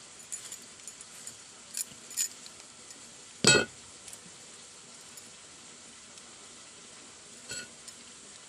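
A few light clinks and taps, the loudest a short ringing clink about three and a half seconds in, over a faint steady sizzle of masala frying in oil.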